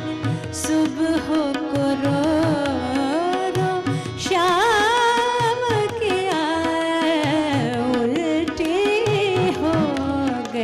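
Female voice singing an Indian classical ghazal, drawing out and ornamenting notes in wavering runs without clear words. Tabla plays underneath over a steady drone.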